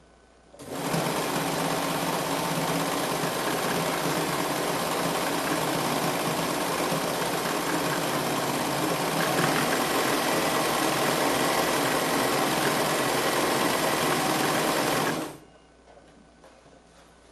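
Bernina 940 sewing machine running at a steady speed for about fourteen seconds, starting shortly after the beginning and stopping suddenly near the end.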